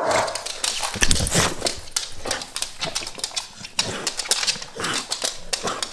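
Staffordshire bull terrier moving about and being petted on a laminate floor: a run of short clicks and scuffles with small sounds from the dog, no barking.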